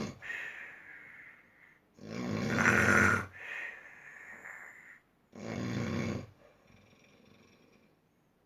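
Loud snoring. The tail of one snore comes at the start, then two long snores follow about three seconds apart, each trailed by a softer breath out. It is fainter near the end.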